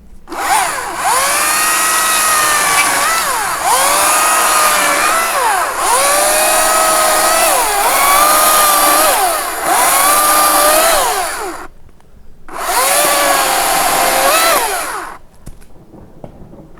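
Makita 40V battery top-handle chainsaw running at full speed, its electric whine dipping in pitch several times as the chain bites into dead pine branches. It stops briefly about twelve seconds in, then runs and cuts again for a few seconds more.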